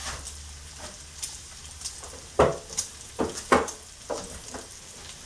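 Bacon and onion sizzling as they fry in a pan, with a run of sharp knocks in the second half.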